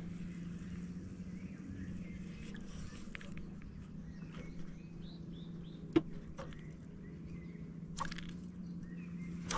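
Outdoor lake ambience: a few short bird chirps and faint water sloshing over a steady low hum, with two sharp clicks, one about six seconds in and one about eight seconds in.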